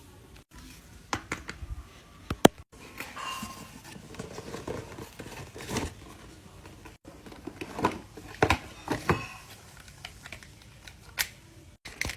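Close handling sounds: crinkling and rustling broken by scattered sharp clicks and snaps, as of crafting materials being worked by hand.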